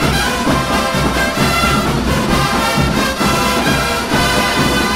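Drum and bugle corps playing: massed brass bugles carry the tune over a steady marching drum beat.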